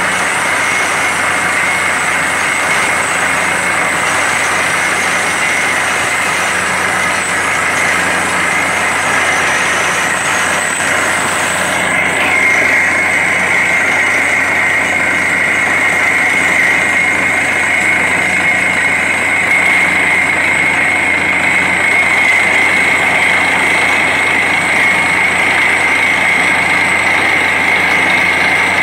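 Truck-mounted borewell drilling rig and its air compressor running steadily while drilling, with compressed air blowing dust and rock cuttings out of the borehole. A steady high whine runs over the engine noise and grows stronger about twelve seconds in.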